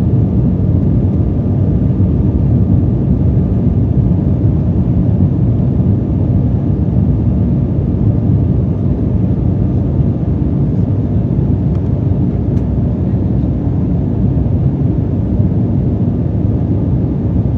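Steady cabin roar of an Embraer 175 regional jet in flight: its two CF34 turbofan engines and the rush of air past the fuselage, deep and unbroken, with a faint steady whine above it.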